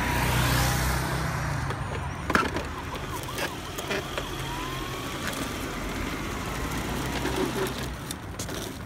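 Plastic wheels of a Bruder toy Mercedes Sprinter ambulance rolling over rough concrete as it is pushed by hand: a steady low rumble, with a sharp knock a little over two seconds in.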